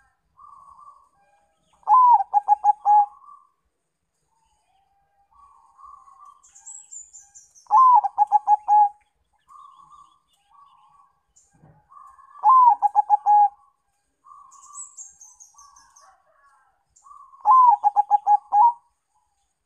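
Zebra dove (perkutut), a Bangkok–local cross, singing its cooing song four times, about every five seconds. Each phrase opens with a rising-then-falling note and runs into a fast string of six or seven short coos, with softer cooing between phrases. Thin high chirping comes in twice.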